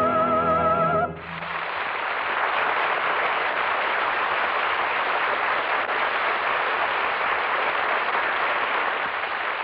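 A final held musical note with a wide vibrato cuts off about a second in, and studio audience applause follows, steady and even, at the close of the act.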